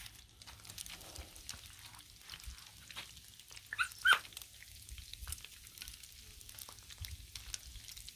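Bacon sizzling and crackling on a flat-top griddle, with a dog giving two short barks about four seconds in.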